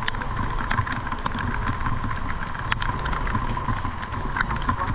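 Street traffic crawling in a jam: a steady low rumble of car and motorbike engines running at idle, with scattered sharp ticks of rain on an umbrella.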